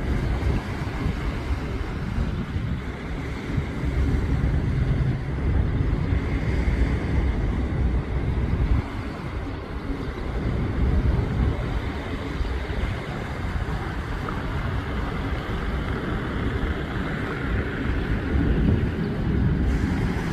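Engine of an express passenger motorboat running steadily, with wind buffeting the microphone.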